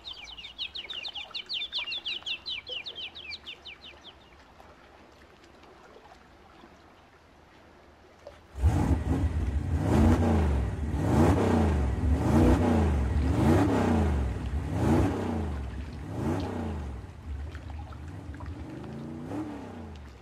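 A small bird sings a rapid trill of quick chirps for the first four seconds. About eight and a half seconds in, a loud motor sound starts suddenly and rises and falls in pitch about once a second, like an engine being revved over and over.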